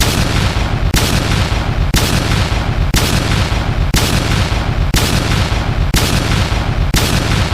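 Countdown timer sound effect: a loud booming hit once every second, each one ringing on until the next.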